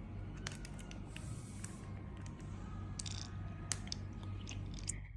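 Faint scattered clicks and light rustling, as from a phone being handled and tapped, over a steady low hum.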